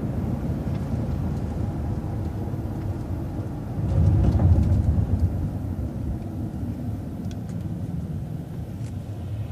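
City transit bus running along the street: steady engine and road rumble with a louder low swell about four seconds in, then easing off toward the end, with a few faint rattles and ticks.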